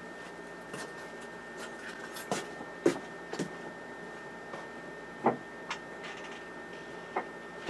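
Steady hum of running equipment with a faint whine, broken by scattered light clicks and knocks, the loudest about three and five seconds in.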